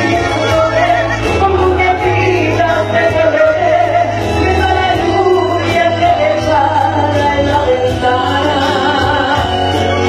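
A woman singing into a microphone over amplified backing music with a steady low bass line.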